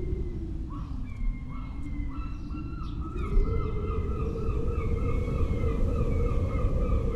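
Steady low rushing noise with a series of short, repeated bird calls over it, which run together into an almost unbroken string from about three seconds in.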